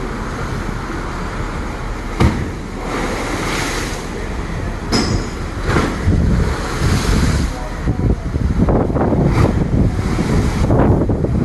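Water in a ship's deck pool sloshing and crashing against the pool walls in several surging splashes, the pool set in motion by the ship rolling in rough seas.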